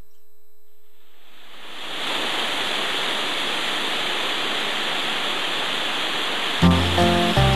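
Steady rush of stream water that fades in over the first two seconds. A song's backing music with a bass line starts about a second before the end.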